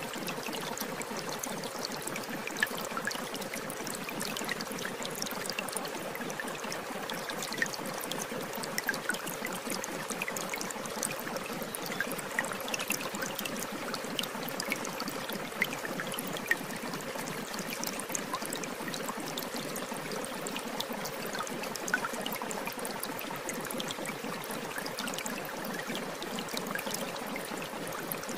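Shower running: a steady spray of water with small splashes and drips scattered through it.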